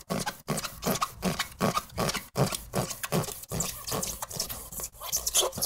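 A large knife sawing through the rubber sidewall of a used tire in quick back-and-forth strokes, about four a second.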